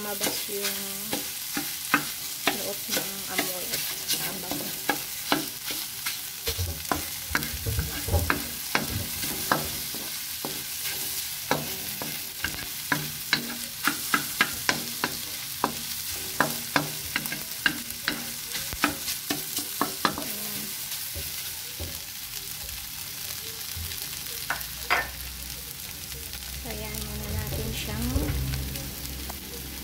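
Wooden spatula scraping and tapping against a metal wok as scrambled eggs with onion are stirred, over a steady sizzle of frying. The quick clicks of the spatula thin out about three-quarters of the way through, leaving mostly the sizzle.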